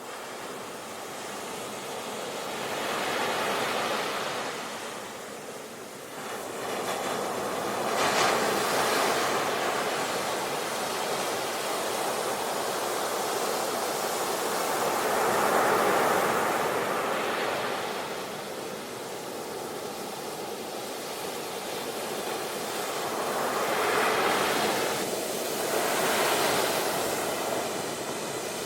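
Ocean surf: waves breaking and washing in, swelling and easing off every few seconds, with a sharper break about eight seconds in.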